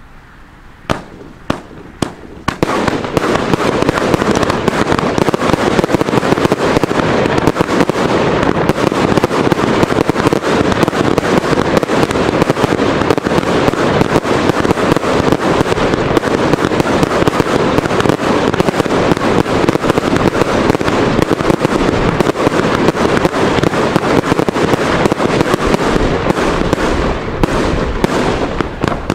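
Three Röder "Gold Monster" firework batteries fired at once. Three sharp bangs about a second in give way to a dense, continuous barrage of shots and aerial bursts that keeps up unbroken and eases slightly near the end.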